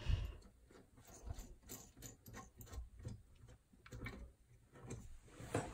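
Faint, irregular clicking of small metal parts: the washer and nut being fitted and tightened on a toilet's floor (closet) bolt at the base of the bowl, with a soft knock at the start.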